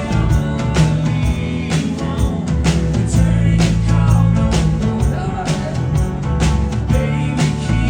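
A rock band playing live, with drums keeping a steady beat about twice a second over bass and guitar, and a lead vocal singing.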